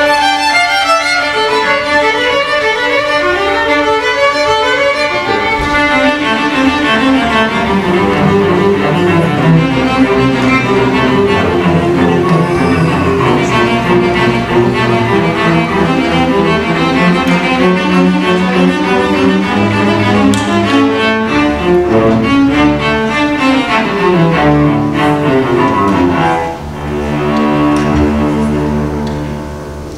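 High school string orchestra playing, with violins first and the cellos and basses joining about five seconds in. Late on the music dips briefly, then a last phrase swells and falls away at the end.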